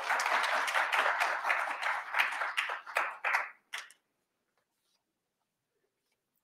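Audience applauding, thinning to a few scattered claps and stopping a little under four seconds in.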